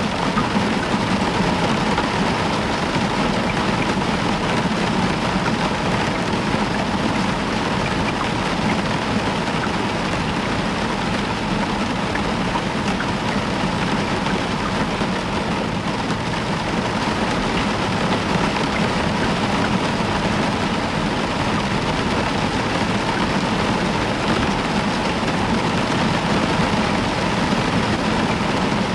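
Heavy rain falling steadily on a roof, an even unbroken hiss.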